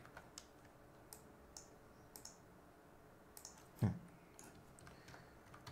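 Faint, scattered clicks of a computer mouse and keyboard, irregular and spread through the whole stretch. About two-thirds of the way through comes one brief, low vocal sound, louder than the clicks.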